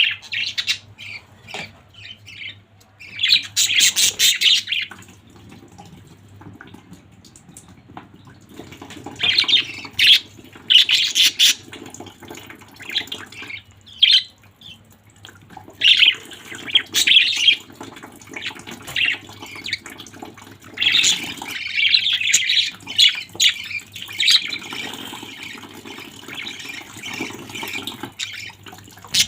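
Pet budgerigars chirping and chattering in bursts of busy, squawky calls, with short pauses between them.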